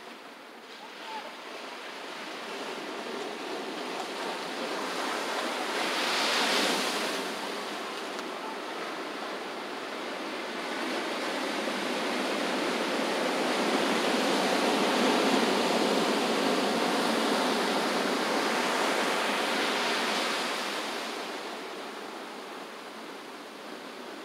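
Ocean surf washing onto a sandy beach, a steady hiss that swells briefly about six seconds in, then builds into a longer, louder wash midway before easing off near the end.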